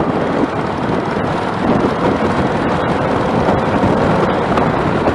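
Steady wind rush over the microphone with a motorcycle running at road speed underneath.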